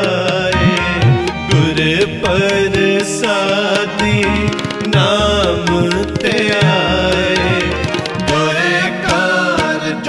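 Sikh Gurbani kirtan: tabla keeps a quick, dense rhythm under a gliding, ornamented melody line, with steady held tones sounding beneath.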